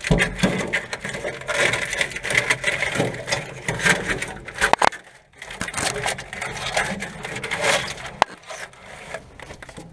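Close scraping, rubbing and knocking as wiring harness cable is pushed along a truck's frame rail and hands and gear brush against the undercarriage, with a couple of sharp clicks.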